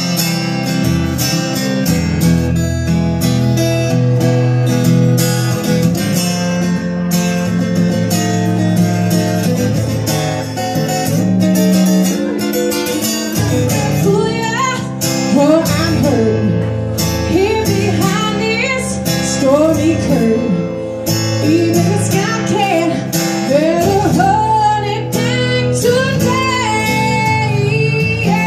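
Live solo acoustic guitar strummed in steady chords, with a woman's singing voice coming in about halfway through.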